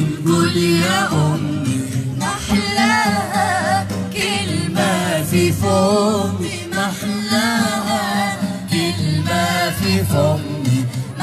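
A mixed vocal group of young women and men sings an Arabic song together through microphones and a PA. Their notes waver and slide over a steady low note underneath.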